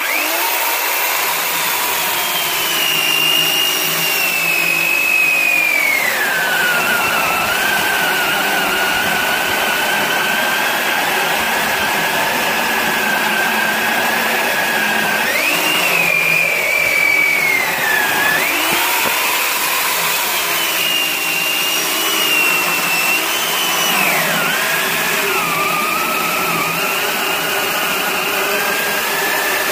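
2000 W corded electric chainsaw with a 12-inch bar running while cutting through a log. Its motor whine sinks in pitch as the cut loads it and climbs again as the load eases, several times over.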